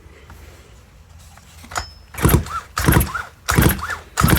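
Stihl MS181 chainsaw's recoil starter cord pulled about four times in quick succession from about two seconds in, each pull a short whir that rises and falls as the engine turns over without firing. The engine is being cranked for a spark check, and no spark shows.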